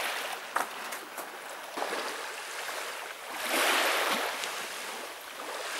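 Small sea waves washing onto the shore, with a louder wash about three and a half seconds in. A couple of light clicks come in the first second and a half.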